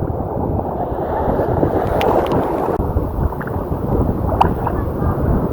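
Ocean surf sloshing and rushing around the swimmer, with wind buffeting the microphone: a dense, muffled rush with a few small splashy clicks.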